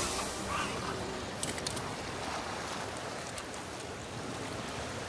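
Sea surf washing against a rocky shore: a steady hiss of waves, with a few faint ticks.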